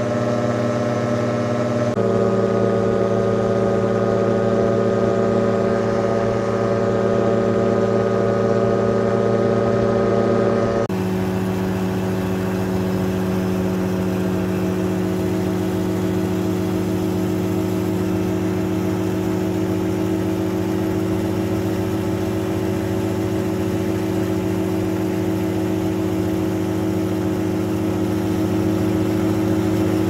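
The Rotax 582 two-stroke engine and propeller of a Spectrum Beaver ultralight droning steadily in cruise flight, heard from on board. The pitch of the drone shifts abruptly twice, a couple of seconds in and again about a third of the way through.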